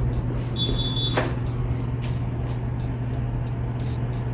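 Door swinging shut under a spring-loaded self-closing hinge: a short high squeak about half a second in, then a light knock as it meets the frame without latching. A steady low hum runs underneath.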